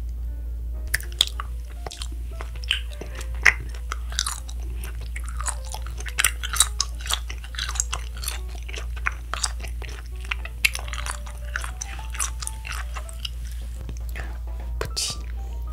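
Chewing of Nik-L-Nip wax-bottle candy: the hard wax bottle crackling and clicking between the teeth in quick, irregular crunches, starting about a second in, over a low steady hum.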